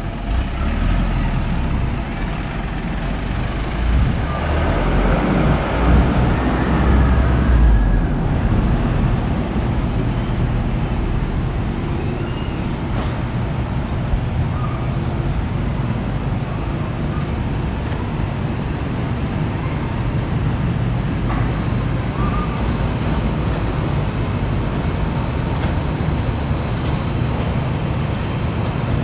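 Road traffic passing close by: a heavy vehicle goes past with a deep rumble, loudest about four to eight seconds in, then a steady wash of traffic noise.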